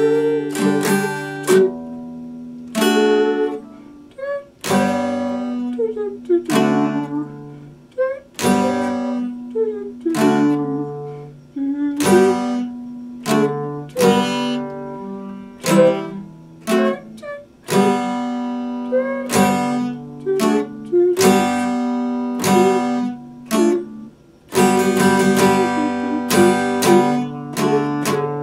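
Acoustic guitar strummed, chords struck about once a second and left ringing between strokes, with quicker strokes in the last few seconds.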